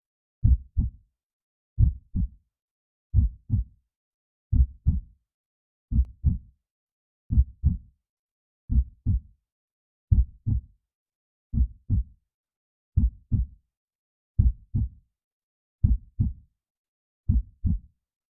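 Heartbeat sound effect: a slow, steady double thump (lub-dub), one beat about every 1.4 seconds, deep and low with silence between beats.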